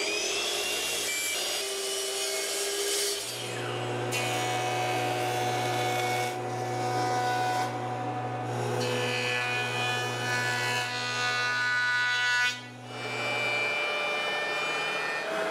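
Woodworking machines running in turn as rough lumber is milled: a sliding miter saw spinning and crosscutting a board to length, then a Ridgid benchtop jointer and a benchtop thickness planer running with steady whines. A steady low hum runs through the middle.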